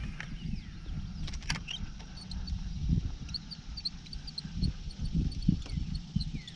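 Uneven low rumble of wind on the microphone in an open bass boat, with small birds chirping faintly in the background and a few sharp clicks about a second and a half in.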